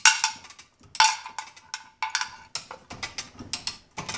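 A manual chain hoist being worked by its hand chain: two sharp metallic clanks about a second apart, then a run of lighter chain clicks as the hoist takes the weight of the outboard off its trim and tilt hydraulics.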